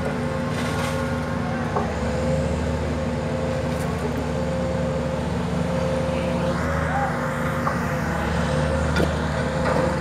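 Hydraulic static pile driver's engine running steadily, a constant drone with a few light clicks. A hiss comes in about six and a half seconds in.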